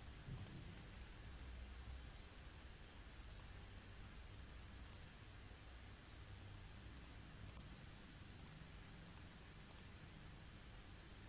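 Computer mouse buttons clicking, about nine sharp ticks spread out and some in quick pairs, over a faint low hum.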